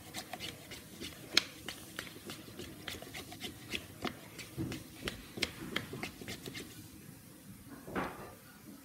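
A spoon clicking and tapping irregularly against a plastic container, several knocks a second, while glue and food dye are stirred together. A short vocal sound comes about eight seconds in.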